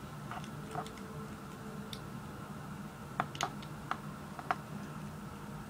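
Irregular light clicks, about eight of them, as a small fingerboard tool is worked against the tiny screws on the back of a Tech Deck deck to unscrew them. A faint steady hum runs underneath.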